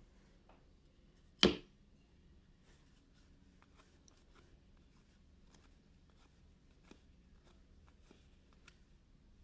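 Trading cards being handled and flipped through on a table: faint rustles and light ticks, with one sharp knock about a second and a half in.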